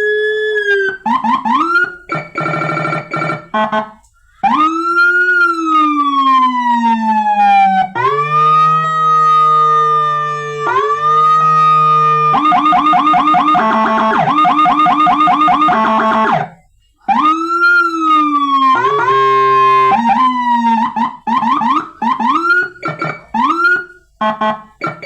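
Electronic vehicle siren set cycling through its tones: slow rising-and-falling wails, stretches of fast warbling yelp, steady held tones, and a string of short chirping blips near the end. It breaks off briefly in the middle between patterns.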